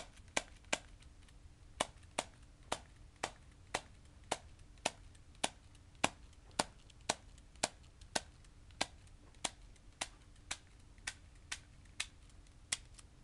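HFC M1911-A1 non-blowback airsoft gas pistol fired over and over, a sharp pop about twice a second, venting its propane to empty the gas from the magazine.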